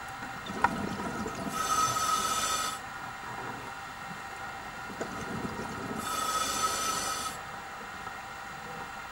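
Scuba diver breathing through a regulator underwater: a bubbling exhale followed by a hissing inhale through the demand valve, twice.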